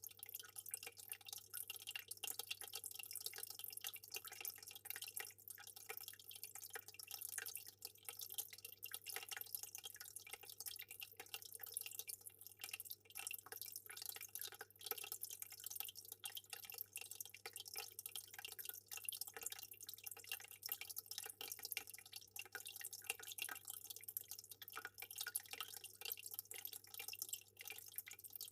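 Fish-tank water trickling and dripping steadily in a constant patter of small splashes, with a faint steady low hum underneath.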